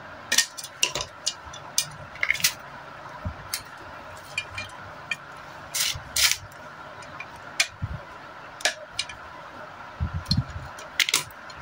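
Irregular metallic clicks and clinks as pliers, a small lever spring and the lever set are worked against the cast metal tappet cover of an L28 diesel engine, the spring being fitted so it holds the lever down.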